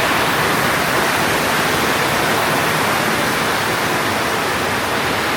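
Torrential rain pouring down, a steady loud hiss.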